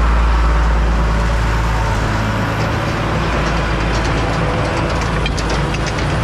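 Engine of the farm machinery running the feed mixer, a steady low drone, as feed is unloaded into the conveyor. Light clicking and rattling join in from about four seconds in.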